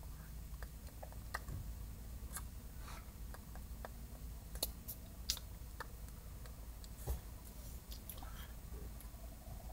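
Quiet car-cabin background: a steady low rumble with scattered short clicks and soft taps.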